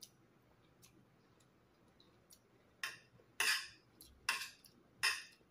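A metal spoon scraping and clinking against a plate as rice is scooped up: a run of about five short scrapes starting about three seconds in.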